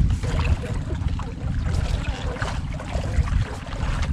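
A small fishing boat's engine running steadily under way, a continuous low rumble with fast, even pulses.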